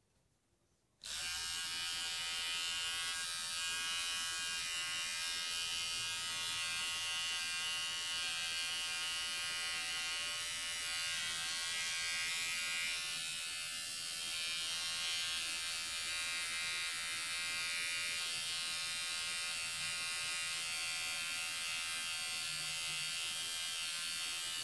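Small battery-powered pet nail grinder switched on about a second in and running with a steady high buzz while it files a young puppy's claws. It shuts off abruptly at the end.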